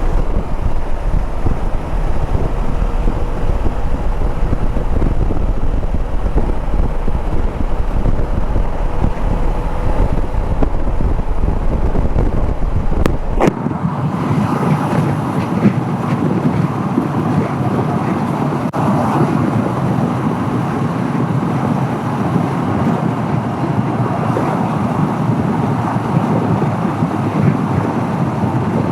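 Wind rushing over the microphone of a moving motorcycle, a 2014 Honda CB500X, with its engine running underneath. About halfway through there is a sharp click, and the deep rumble drops away suddenly, leaving a steady rushing hiss.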